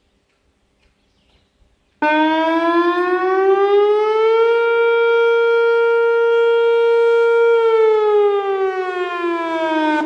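Whelen WPS-2802 electronic outdoor warning siren sounding a test signal. It starts abruptly about two seconds in, rises in pitch, holds a steady high tone for about three seconds, then falls in pitch.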